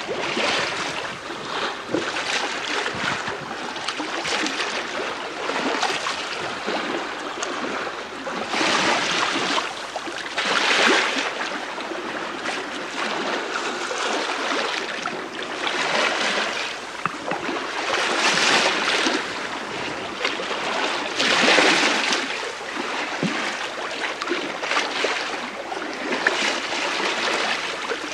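Bow wave of the three-masted schooner STS Malcolm Miller under sail in light wind, heard from the lee quarter: water washing along the hull, swelling louder every few seconds.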